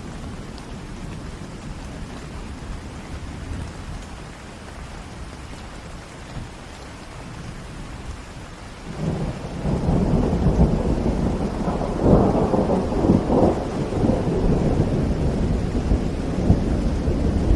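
Steady rain in the city with thunder: about halfway through, a roll of thunder breaks in and keeps rumbling, with its loudest crackling peaks a few seconds later.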